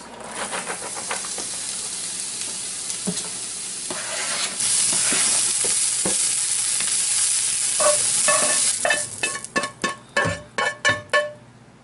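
Chopped onion frying with a steady sizzle in a frying pan while a spatula stirs it, the sizzle growing louder about four seconds in. Near the end, a quick run of sharp scrapes and clinks as the onions are scraped out of the pan into a pot.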